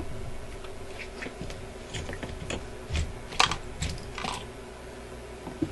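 Screwdriver work on a record player's case: scattered light clicks and taps of the tool and screws, the sharpest a little past halfway.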